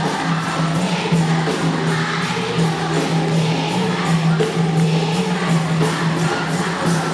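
A large crowd of school students singing a cheer song together, with a steady beat of sharp strokes about three a second, likely clapping.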